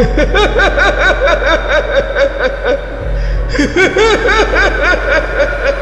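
A sinister snickering laugh in quick repeated syllables, in two runs with a short break about halfway, over a low droning music bed.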